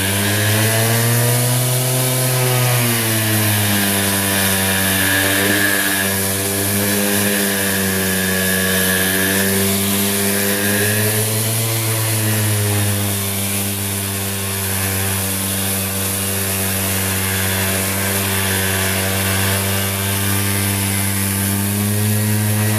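Ridgid R2611 6-inch random orbital sander running continuously while sanding out 60-grit scratch marks on a floor with 100-grit paper. Its motor pitch dips and recovers a few times as it is worked, over a steady hiss of dust extraction from a shop vacuum.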